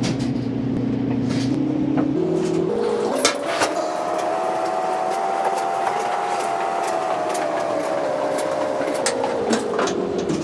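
Whirlpool LEN2000PW0 clothes dryer running with a steady motor hum, with sharp clicks of metal and screws as a panel is fastened. Partway in, the hum's pitch climbs in steps to about three times higher and then steps back down near the end.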